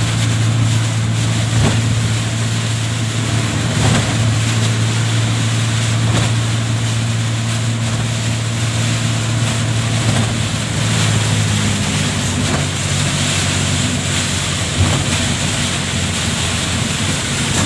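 Heavy rain and strong wind making a dense, steady rush, with a steady low engine hum underneath that shifts in pitch about ten seconds in.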